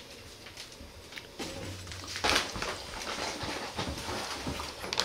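Cats moving right by the microphone: breathy sniffing and fur rustles, with a short, loud breathy burst about two seconds in.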